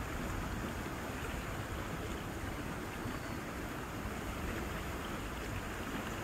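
Steady rushing outdoor background noise with a low rumble and no distinct events.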